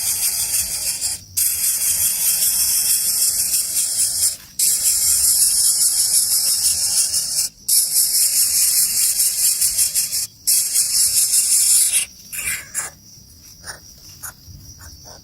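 Nestlings in the nest begging for food with loud, high-pitched hissing calls, nearly continuous with brief breaks every few seconds. Near the end the calls break into short, quieter bursts.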